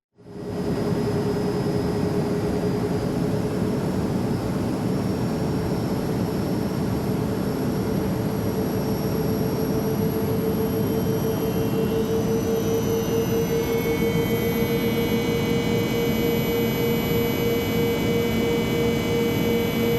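Jet aircraft engine running with a steady rush and a whine that creeps slowly upward, starting abruptly at the beginning; a cluster of higher whistling tones joins about halfway through.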